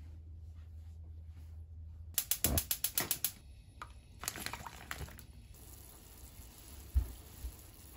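A steady low hum, then a quick run of rapid clicks about two seconds in, followed by water boiling in a frying pan with sausages in it, with a few light knocks and splashes.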